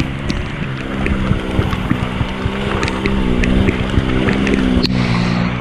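Off-road vehicle's engine running under load, its pitch shifting a little, with frequent knocks and rattles over rough ground.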